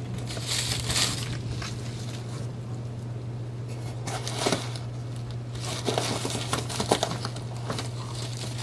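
Paper packaging crinkling and rustling in several short spells as a parcel is unwrapped by hand, with a steady low hum underneath.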